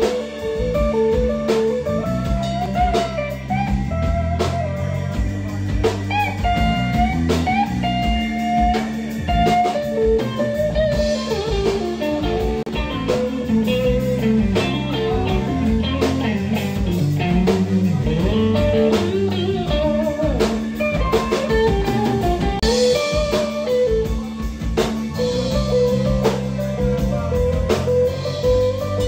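Background music: a blues-style tune led by guitar over a drum kit.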